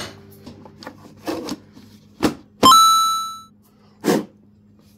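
Handling knocks on the planer, then a sharp metallic clink about halfway through that rings out clearly and dies away in under a second, with another dull knock near the end.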